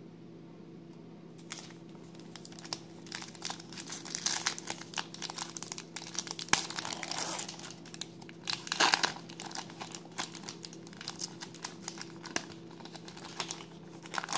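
Foil wrapper of a Topps Stadium Club baseball card pack being crinkled and torn open by hand: irregular crackling rustles, with louder bursts about 4, 7 and 9 seconds in.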